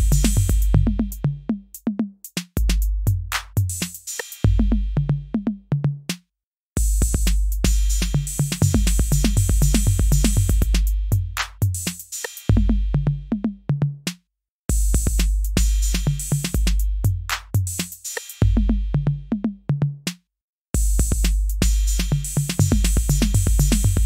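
Background music: an electronic drum-machine beat with deep bass and bright hi-hats, stopping for a moment three times.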